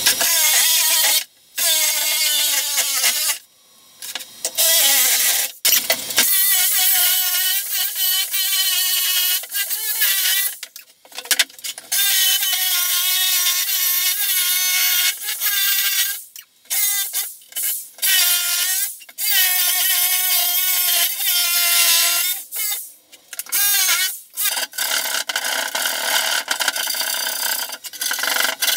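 Jigsaw cutting into plywood in repeated bursts, its motor whine shifting in pitch and cutting out between cuts. Near the end, a wood rasp scraping back and forth over the board's edge.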